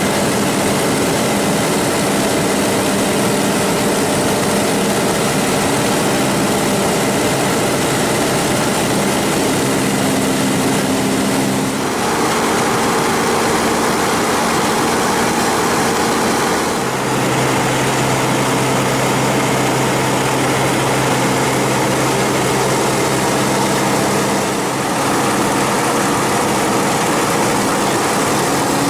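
Light aircraft's propeller engine droning steadily, heard from inside the cabin; its pitch steps slightly twice, about 12 and 17 seconds in.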